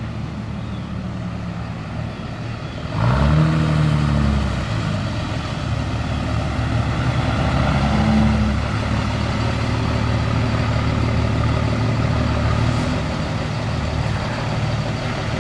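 Cummins turbo-diesel pickup engines running as the trucks drive up, revving with a rising pitch about three seconds in and again around eight seconds. The red truck's common-rail Cummins is straight-piped through a makeshift exhaust of electrical conduit.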